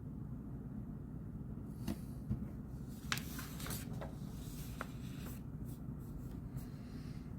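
Pen scratching on paper, with a few light clicks and taps, over a steady low room hum; the writing runs from about two seconds in to a little past the middle.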